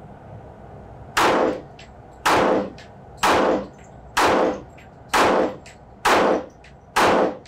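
A .45 ACP 1911 pistol firing seven shots at an even pace of about one a second, starting about a second in. It is being function-tested for feeding from a ten-round magazine.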